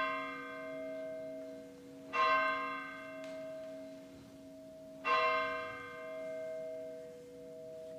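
Sanctus bell struck three times, about two and a half seconds apart, at the elevation of the consecrated host. Each stroke rings on, its lower tones sustaining under the next.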